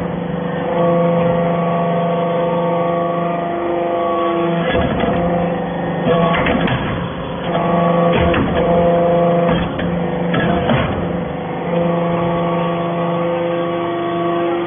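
Hydraulic metal-chip briquetting press working: a steady pitched hum from its hydraulic unit that breaks off briefly a few times. Several metallic clanks and knocks come as the ram cycles, compacting the chips into briquettes.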